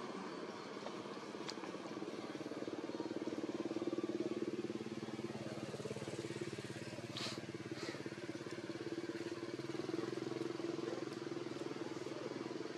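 A steady low engine drone from a running motor vehicle, swelling slightly a few seconds in. Two short high squeaks come about seven seconds in.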